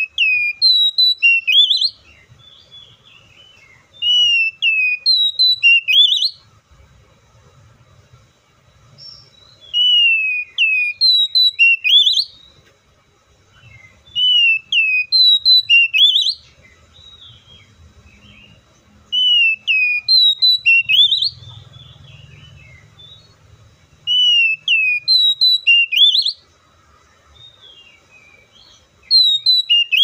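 Oriental magpie-robin singing: a loud two-second whistled phrase of falling notes that ends in a quick rising sweep, repeated seven times with pauses of two to four seconds between.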